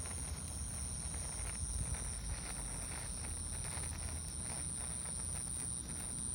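Handheld firework burning with a sputtering crackle of sparks, over a steady high-pitched whine and a low rumble.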